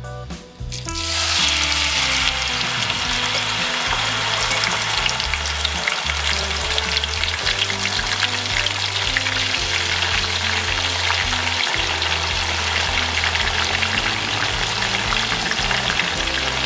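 Pork strips deep-frying in hot oil in a pot on high heat. The oil bursts into a loud, steady sizzle with constant crackling about a second in.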